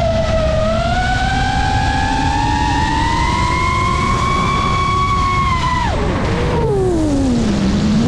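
FPV racing-drone motors and propellers whining, the pitch gliding up and down with the throttle, over a steady rush of air. About six seconds in the whine falls steeply to a low hum as the throttle is cut, as for a dive.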